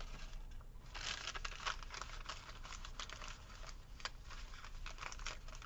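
Paper sticker sheets and planner pages being handled as stickers are peeled off their backing and pressed down: a quick run of light rustles and ticks starting about a second in.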